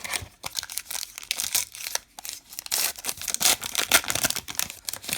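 Crinkly plastic wrapper of a baseball card pack being torn open and crumpled in the hands, a rapid run of sharp crackles that grows loudest past the middle.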